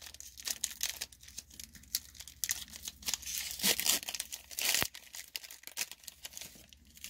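Foil wrapper of a Pokémon trading card booster pack crinkling and tearing as it is ripped open by hand. The crackling is busiest about three to four seconds in, with a sharp click just before five seconds.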